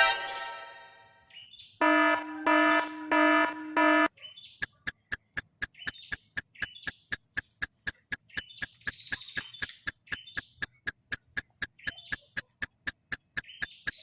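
Electronic alarm beeping: a sharp tone at the start, four beeps about two-thirds of a second apart, then a long even run of short ticks, three to four a second. Birds chirp in the background.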